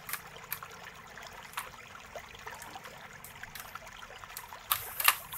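Light clicks and faint scraping as the hard-disk mounting screws of an HP 14 laptop are undone by hand in its opened plastic chassis, with a few sharper clicks near the end.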